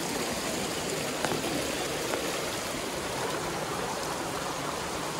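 Shallow water running steadily over stones in a small rocky spring channel.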